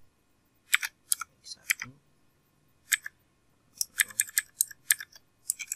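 Computer keyboard keystrokes, typed in short irregular runs with pauses between, and a quicker run about four seconds in.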